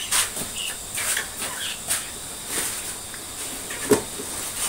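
LPG gas burner hissing steadily under a big pot of boiling coconut milk, with light scrapes and clinks of a metal ladle against a metal bowl as fish and curry paste are scooped into the pot; one sharper knock near the end.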